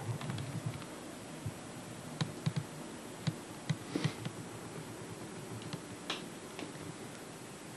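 Faint scattered clicks and soft knocks, about a dozen spread over several seconds, over a steady hiss.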